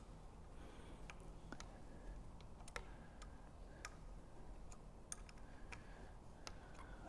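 Faint, irregular clicks of a 5 mm Allen key turning in the two clamp bolts at the top of a kick scooter's stem as they are tightened.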